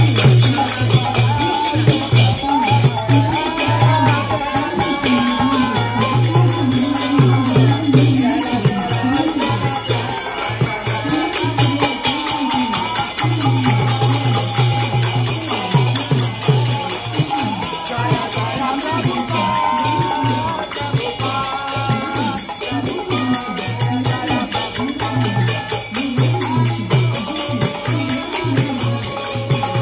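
Devotional kirtan: voices chanting a Hindu bhajan melody over steady, fast jingling hand percussion.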